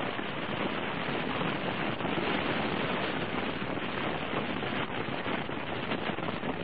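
Steady wind rush and buffeting on the microphone of a camera mounted on a moving motorcycle, riding in rain on a wet road, with a dense crackle through it. No clear engine note stands out.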